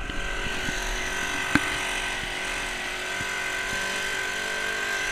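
Off-road four-wheeler's engine running steadily under load, with a constant high-pitched whine over it. One sharp knock about a second and a half in.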